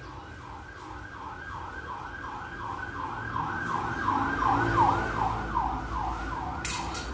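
Emergency vehicle siren in a fast yelp, about three or four pitch sweeps a second, growing louder to a peak just past the middle and then easing off as it passes. A brief clatter sounds near the end.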